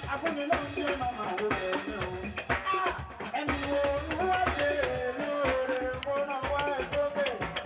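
Music with a drum kit keeping a steady beat under a shifting melody line.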